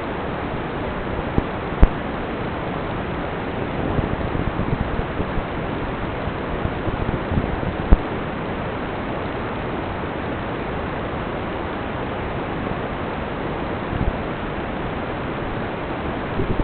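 Steady, even hiss of static from an FPV drone's analog video link, with sharp clicks about two seconds in and about eight seconds in.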